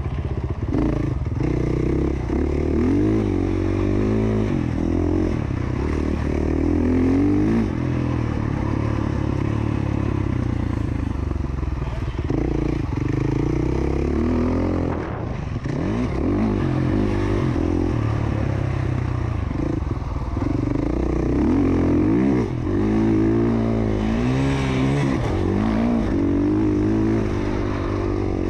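Motocross dirt bike engine revving up and falling back over and over as the rider rolls on and off the throttle and shifts through the corners and jumps.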